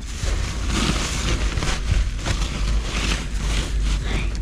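Rubbish being rummaged through and pulled out inside a dumpster: irregular rustling and light knocks of bags and objects, over a steady low rumble.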